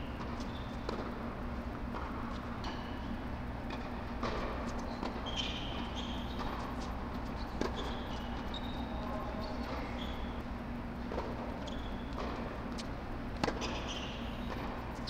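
Tennis rally on an indoor hard court: sharp pops of the ball off the strings and off the court, one every second or two, with sneakers squeaking on the court surface. A steady low hum runs underneath.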